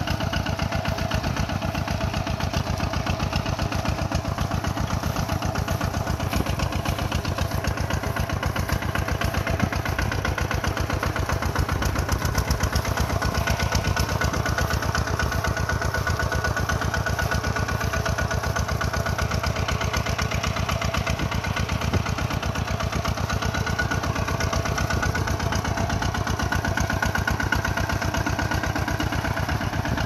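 Kubota single-cylinder diesel engine of a two-wheel walking tractor running steadily under load, with an even, rapid firing beat, as it pulls a disc plough through a flooded rice paddy.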